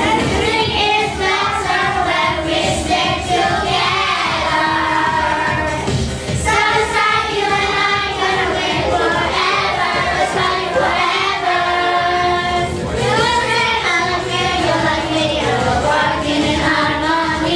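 A group of children singing a pop song over a backing track with a steady beat.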